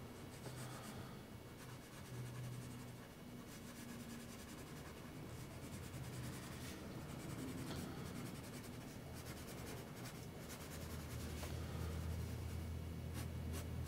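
Graphite pencil scratching on drawing paper in quick, short, repeated strokes, cross-hatching shading onto a sketch.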